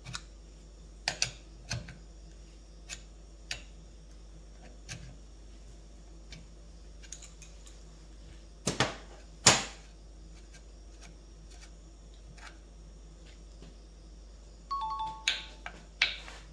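Scattered clicks and taps of metal tools and parts being handled in bolt-extraction work, with two sharper knocks about nine seconds in and a brief ringing tone among more knocks near the end.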